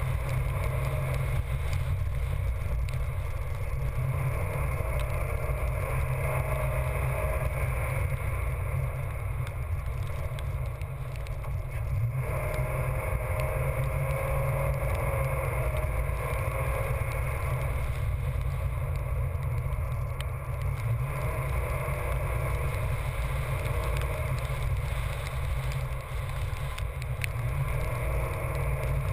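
A chase vehicle driving at speed: a steady, dense low rumble of tyres, engine and wind.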